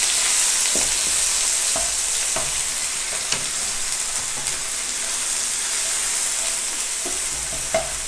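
Chopped onions frying in hot oil in a pan, a steady sizzle as they turn golden brown. A few light knocks come through as they are stirred.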